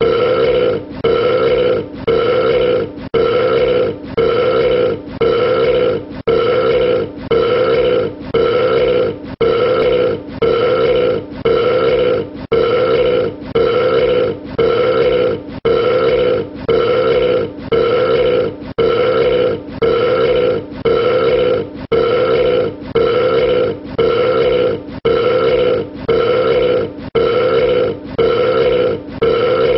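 A man's belch repeated over and over, the same short burp about once a second with a brief gap between each.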